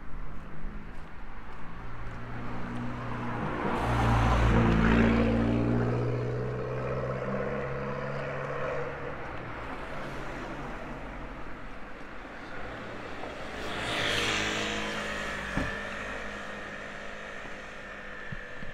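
Motor vehicles driving past close by. The first is loudest about four to five seconds in, its engine note dropping as it goes by, and a second, quieter one passes near the end.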